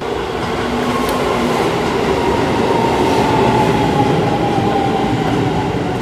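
Keisei electric commuter train pulling into a station platform: a loud rumble and hiss of wheels on rails, with a motor whine that falls steadily in pitch as the train slows.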